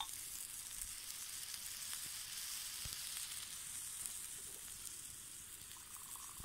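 Halved tomatoes sizzling on a hot stone slab over a wood fire: a steady high hiss with faint scattered crackles.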